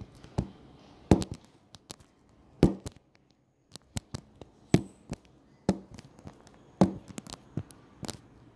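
Sharp clicks and knocks of hard plastic, about a dozen at uneven intervals, as a plastic toy capsule is handled and set on a table.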